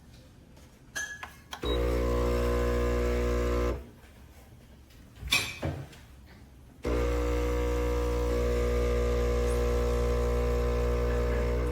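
Neretva 20-bar espresso machine's pump running with a steady hum for about two seconds, then stopping. After a few handling clicks it starts again about seven seconds in and keeps running.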